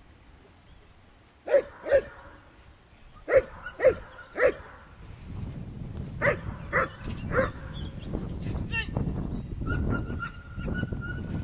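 Dog barking: about eight sharp, deep barks in short groups of two and three. A low rumble of wind on the microphone builds in the second half.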